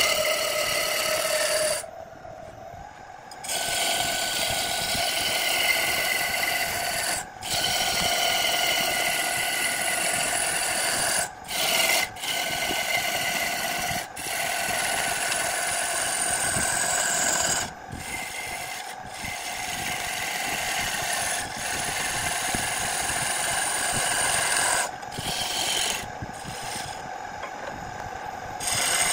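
A hand-held turning tool cutting into a spinning wood blank on a lathe: a continuous rasping, scraping hiss with a faint whining tone in it. It is broken by several short breaks, the longest about two seconds in and another near the end.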